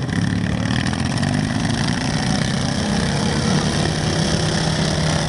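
Several racing riding lawn mowers' engines running together steadily as the pack drives around the track.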